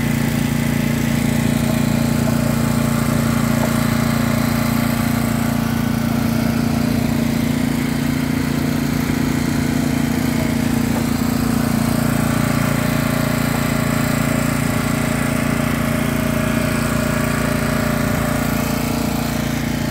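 Small single-cylinder gasoline engine driving a malacate (builder's concrete hoist), running steadily at an even speed.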